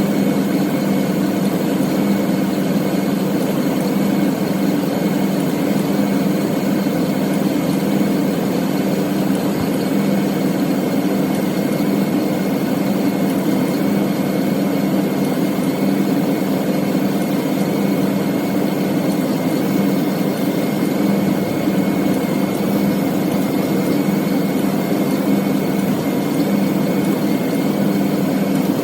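2000 Ford F-250's engine idling steadily with the air conditioning switched on during a refrigerant recharge.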